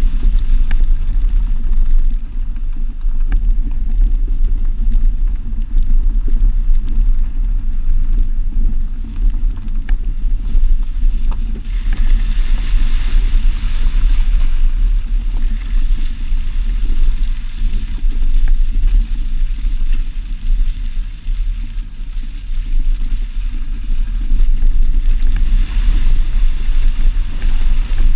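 Jeep driving, heard from a GoPro on the driver-side mirror: a loud, steady low rumble of wind buffeting the microphone over engine and tyre noise. A hiss swells up about halfway through and again near the end.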